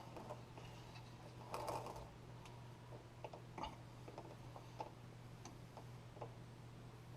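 Faint, irregular metal clicks and ticks of hand tools working on hydraulic hose fittings, with a short scrape near the start, over a steady low hum.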